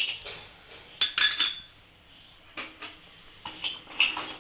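Hard pieces of dry ginger (sukku) and a spoon clinking and clattering in a pan as the ginger goes in for dry-roasting. The sound comes as several short bursts of sharp clinks with quiet gaps between them.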